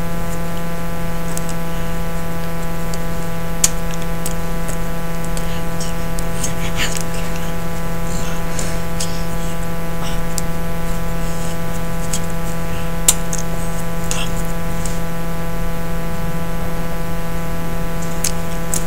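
Steady electrical buzz: a constant hum made of many even tones stacked one above another, with a hiss under it. A few sharp faint clicks and brief soft rustles sound over it.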